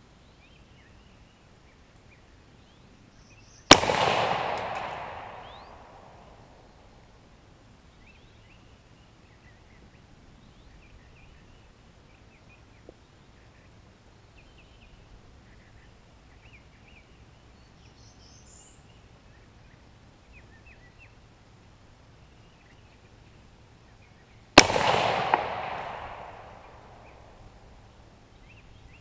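Two rifle shots from an M1D Garand firing 150-grain .30-06 ammunition, about 21 seconds apart. Each is a sharp crack followed by an echo that fades over about two seconds.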